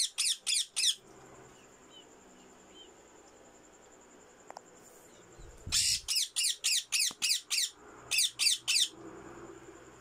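Alexandrine parakeets squawking harshly in rapid runs of about five calls a second, each call falling in pitch. A short run ends about a second in; a longer run starts around six seconds in and breaks off briefly before four more calls near the end.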